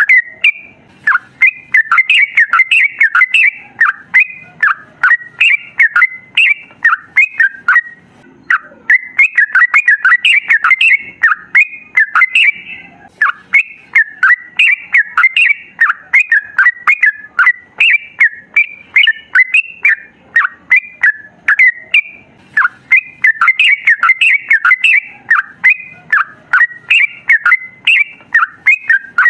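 Yellow-vented bulbul singing a long, rapid chattering song of short, quick notes, several a second, with brief pauses.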